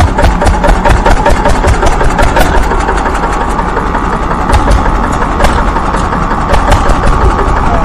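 Miniature diesel engine running, loud and steady, with a rapid, even knocking.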